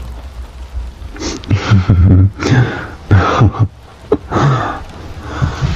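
A man's low, breathy voice in several short bursts with brief pauses between them, starting about a second in.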